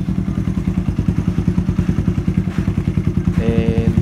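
Suzuki GD110's single-cylinder four-stroke engine idling steadily through its exhaust, an even, rapid beat, on a Mikuni PWK 28mm flat-slide carburetor that the owner says still runs a rich mixture.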